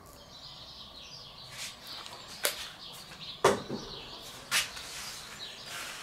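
Oil sprayed onto a hot cast-iron BBQ disk sizzling and crackling as the plate is oiled after scraping, a soft hiss broken by a few sharp pops, the loudest about midway.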